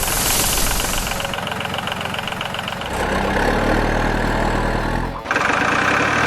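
Vehicle engine running with a fast, even clatter, changing about three seconds in to a deeper, steady engine tone that cuts off abruptly about five seconds in, when a different sound starts.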